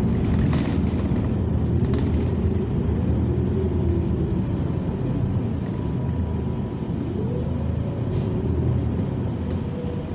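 Interior drivetrain sound of a New Flyer Xcelsior XN40 natural-gas city bus under way: a steady low rumble with an engine and transmission note that rises and falls as the bus speeds up and slows.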